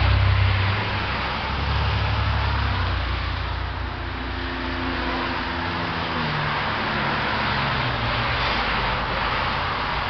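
A motor vehicle's engine running, with a steady noise and a low rumble that eases about three seconds in.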